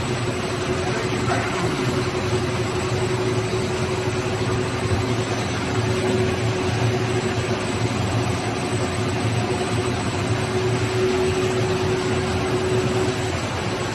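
HDPE ABA film blowing machine running: a steady mechanical hum with one constant tone over an even rush of noise.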